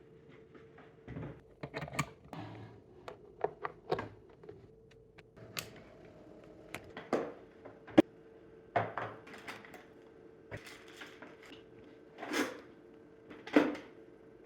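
Handling of a portable 12 V fridge: a series of sharp clicks and knocks with a few short scrapes, the sharpest click about eight seconds in, over a faint steady hum.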